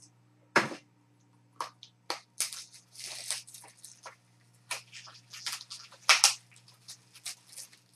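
Plastic and cardboard packaging handled by hand, crinkling and rustling in irregular bursts, with the loudest crackles about half a second and about six seconds in.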